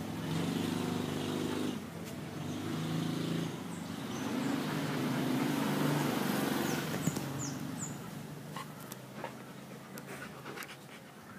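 A motor vehicle engine running close by, its low hum growing louder and then fading away over several seconds. A few light clicks come near the end.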